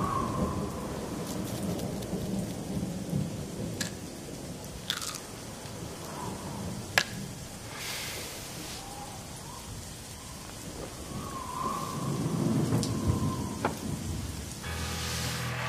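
Thunderstorm: steady rain with rolling thunder that swells loudest near the end, with a few sharp cracks and a faint whistle of wind. Just before the end, steady held musical tones come in.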